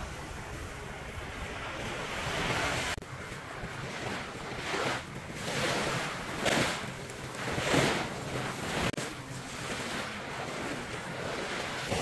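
Sea waves washing up on a sandy beach, with wind on the microphone. The wash swells louder several times.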